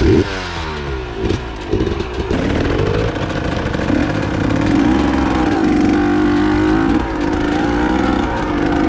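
A KTM 150 XC-W two-stroke dirt bike engine pulling up a woodland trail, its exhaust pipe slightly pulled out of the manifold. The revs climb in several quick rises in the first couple of seconds, then the engine runs on with a steadier, wavering note as the throttle is worked.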